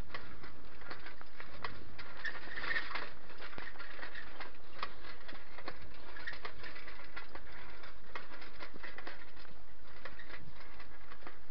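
Handling noise of a handheld action camera carried on foot: irregular clicks and rustles over a steady hiss.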